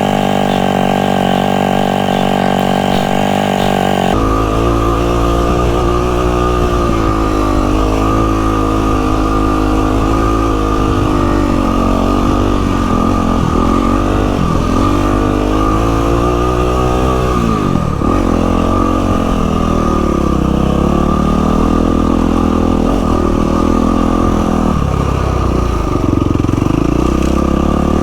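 Yamaha WR450F's single-cylinder four-stroke engine running on a trail ride, the revs rising and falling with the throttle and gear changes. It holds steady revs at first, and the sound changes abruptly about four seconds in.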